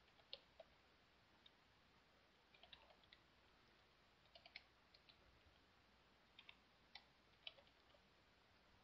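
Faint, sparse computer keyboard keystrokes, clicking in small irregular clusters as a command is typed.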